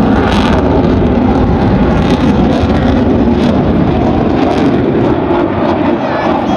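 Fighter jet passing during an airshow display, its engines giving a loud, steady roar.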